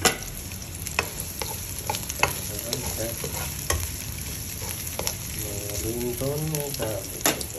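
Shallots and ginger sizzling in hot oil in a wok while a spatula stirs them, with sharp clicks of the spatula striking the pan now and then.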